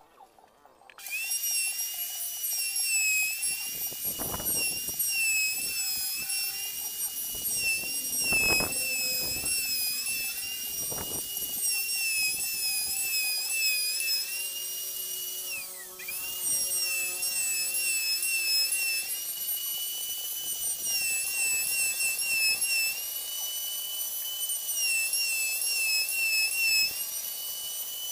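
Handheld electric router running and cutting a lattice pattern into a wooden bed panel: a steady high-pitched whine that wavers a little as the bit works the wood. The motor starts about a second in and its pitch dips briefly about halfway through, with a few light knocks in the first half.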